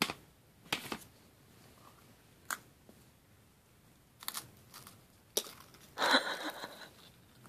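A baby biting and chewing crunchy animal crackers: a few separate sharp crunches and clicks spaced through, with a louder, longer burst of sound about six seconds in.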